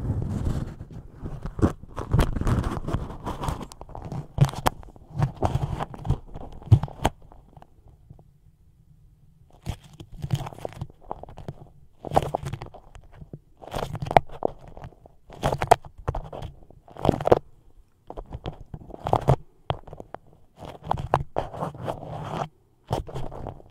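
Beeswax food wrap crinkled, squeezed and scratched with fingernails close to a microphone, giving irregular sticky crackles and crunches. There is a short lull about eight seconds in.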